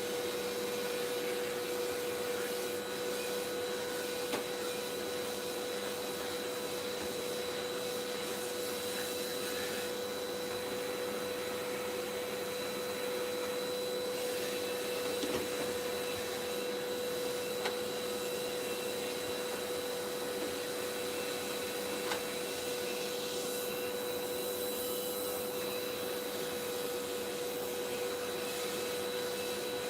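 Vacuum cleaner running steadily, its motor hum holding one even pitch, with a few brief light knocks.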